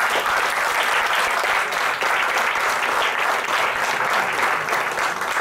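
Audience applauding, a steady round of clapping that eases off slightly near the end.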